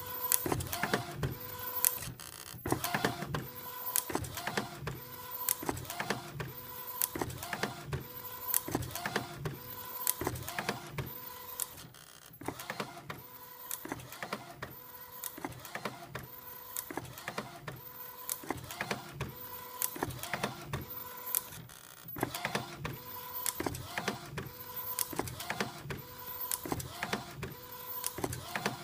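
Epson Stylus Photo 1400 inkjet printer printing an A3+ sheet, its print head carriage sweeping back and forth about once every three-quarters of a second with a strange squeak on the passes. The strokes are quieter for a stretch in the middle, then pick up again.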